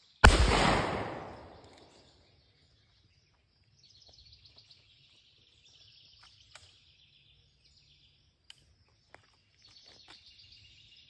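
A single shotgun shot just after the start, loud, with an echo that fades over about two seconds. Then birds chirp from the trees.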